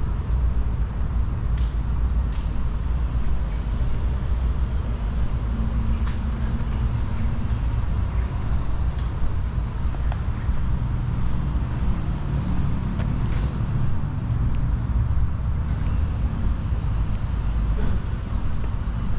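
Steady low rumble of passing road traffic, with an engine hum swelling at times and a few short hisses like heavy-vehicle air brakes.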